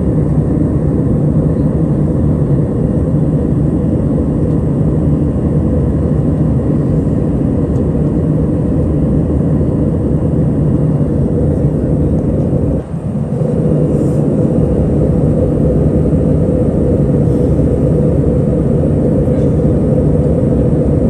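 Steady, loud cabin drone of an Airbus A321 in its climb: jet engine and airflow noise heard from inside the passenger cabin. A brief dip in loudness comes a little past halfway.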